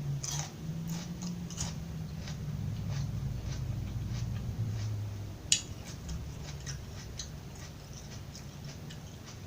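Close-up chewing of crunchy raw vegetables: irregular crisp crunches and crackles over a low mouth rumble, with one sharp snap about five and a half seconds in.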